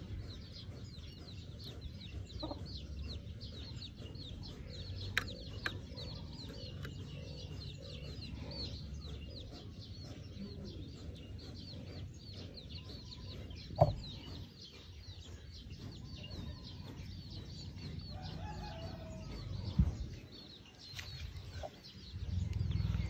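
Bird calls: rapid short chirps, several a second, thinning out after about halfway. A few sharp knocks stand out.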